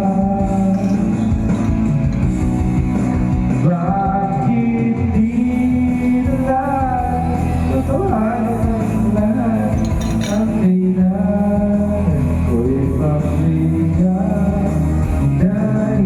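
Band music with a singer, running steadily and loud, with a sustained bass under a wavering sung melody line, as at a live sound check.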